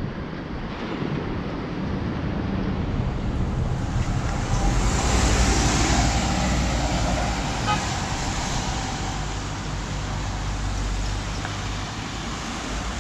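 A motor vehicle passing, its noise swelling to the loudest point about five seconds in and then settling to a steady traffic hum with a low rumble.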